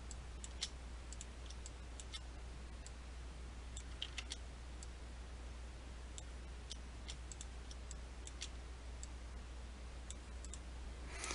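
Faint, scattered clicks of a computer mouse and keyboard in irregular bunches, over a steady low electrical hum.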